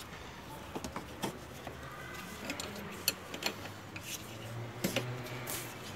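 Irregular small metallic clicks and scrapes of a spanner working on the fittings of an LPG gas cut-off valve, undoing it to get at its filter.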